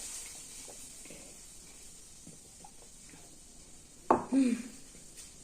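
Eating sounds close to the microphone: faint chewing and small crunches, then a short vocal sound from the eater about four seconds in.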